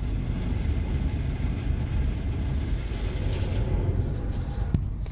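Car wash water jets spraying over the car, heard from inside the cabin as a steady rushing rumble. A single sharp click near the end.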